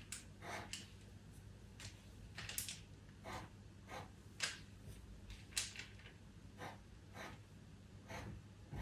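Pastel pencil scratching on pastel paper in short, irregular strokes, about one or two a second, as fur and highlight marks are laid down with firm pressure.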